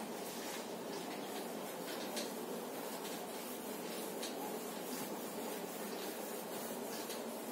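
A cloth wiping marker writing off a whiteboard: faint repeated rubbing strokes over a steady background hiss.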